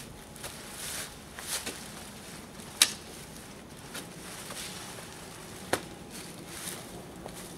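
Dry leaves and brush rustling as a hand tool is worked at the edge of a sidewalk, with two sharp knocks about three seconds apart.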